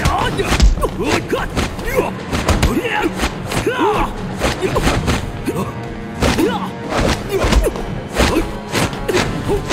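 Staged fight sound effects: a rapid run of punch and kick impacts and heavy thuds, several a second, over dramatic background music.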